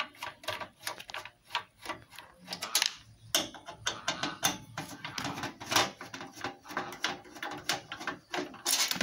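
Screwdriver undoing screws in the sheet-metal case of a Black Spider mixing amplifier: a run of irregular metallic clicks and scrapes as the screws are turned out.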